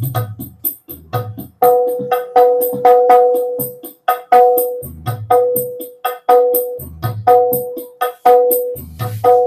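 Percussion-heavy music played loud through a homemade speaker box with horn tweeter and woofer, driven by a D10 amplifier board as a sound test. Quick, sharp percussion hits over a repeated ringing note, with a deep bass thump about every two seconds.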